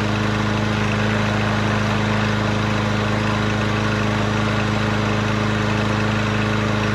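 Craftsman push mower's small engine running steadily at one constant speed, with an even hum that does not rise or fall.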